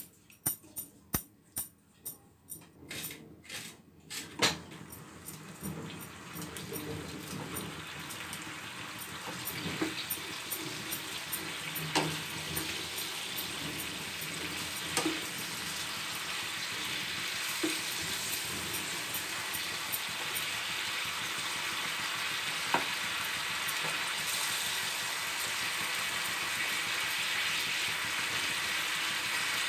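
Spiced star fruit and melting sugar sizzling and bubbling in a nonstick frying pan, growing steadily louder as the pan heats and the sugar melts. A spatula stirs and scrapes the pan throughout, with quick taps for the first few seconds and a few single knocks later.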